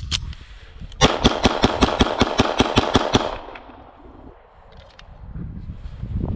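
Tristar C100, a CZ75-clone 9mm pistol, fired rapidly: about a dozen shots in just over two seconds, roughly six a second, with the echo trailing off after the last. A sharp click comes right at the start.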